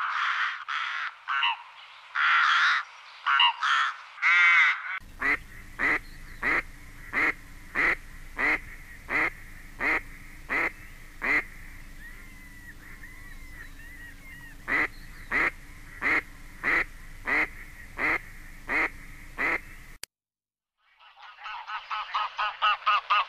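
A run of recorded bird calls from different birds. It opens with a few seconds of varied calls, then evenly spaced single calls, about one and a half a second, with a break of a few seconds in the middle. After a second of silence, geese start honking near the end.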